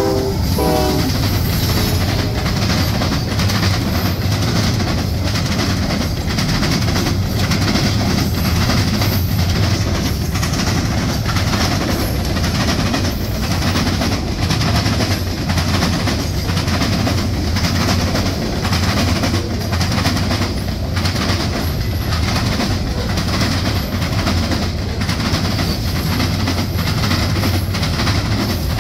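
Norfolk Southern freight train passing close by: the tail of a horn blast cuts off just after the start, then diesel locomotives and a long string of freight cars roll past. The wheels clack over the rail joints in a steady rhythm over a low rumble.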